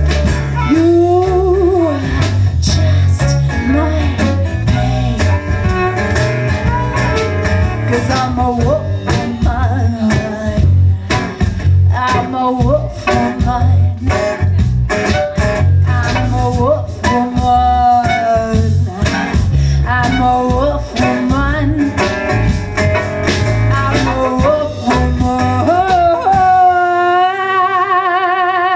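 Live folk band playing: female lead vocal over acoustic guitar, electric bass, violin and drum kit. Near the end the band stops and the singer holds one long note with vibrato.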